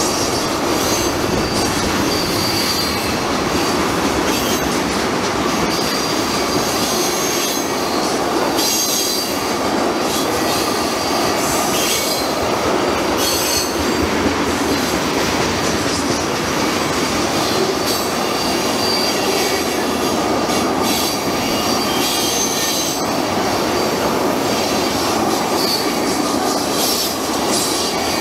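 Freight train of ethanol tank cars rolling steadily past: a constant rumble of steel wheels on rail, with high-pitched wheel squeal coming and going and scattered clicks as wheels cross rail joints.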